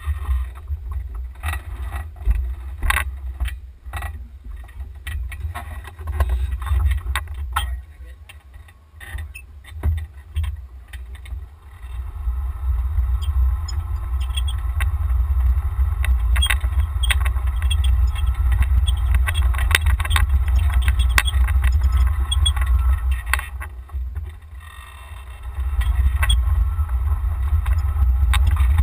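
Golf cart moving off and driving slowly, heard from a camera mounted on the cart: a constant low rumble with knocks and rattles of the cart at first, turning into a steadier running noise once it gets under way about twelve seconds in.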